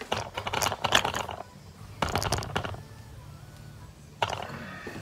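Short runs of clicking and rattling from small hard objects being handled, in three spells: one over the first second and a half, one at about two seconds, and a brief one just after four seconds.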